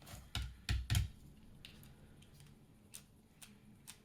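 A Phillips screwdriver and a solid-brass padlock being handled as a Loctite-held screw is backed out: three sharp knocks and clicks in the first second, then faint scattered ticks.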